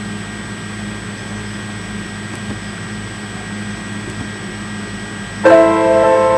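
Steady low hum and hiss, then about five seconds in an instrumental backing track starts suddenly with sustained piano chords.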